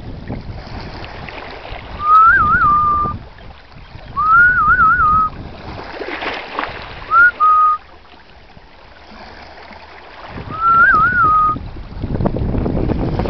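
Four clear whistles, each rising into a quick warble and ending on a short held note. Under them, wind rumbles and gusts on the microphone.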